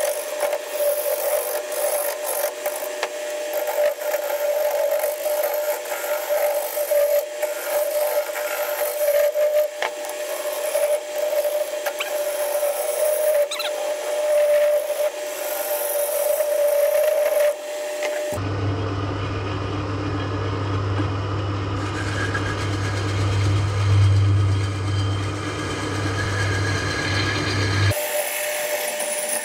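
A 1970s Coronet woodworking lathe running while a hand-held gouge roughs down a spinning ash log, with continuous scraping and shaving noise over the machine's steady hum. About eighteen seconds in, the sound turns to a deeper hum with the cutting continuing, and it changes back near the end.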